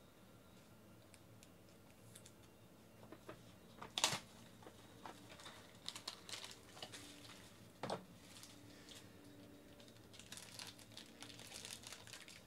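Hands opening a trading-card hobby box: scattered light clicks and taps of cardboard, with two sharper knocks about four and eight seconds in, then the crinkling of the foil pack wrapper near the end.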